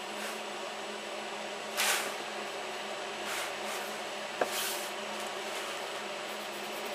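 Pencil scratching on paper and wood as it traces round a template, in a few short strokes, with a sharp click about four and a half seconds in, over a steady faint hum.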